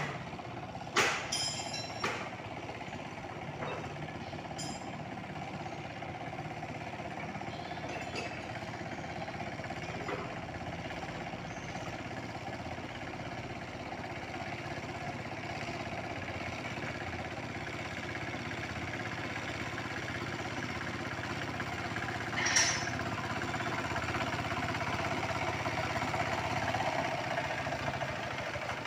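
Tractor engine running steadily while plowing a rice paddy, with a few sharp clanks in the first couple of seconds and one louder knock about three-quarters of the way through.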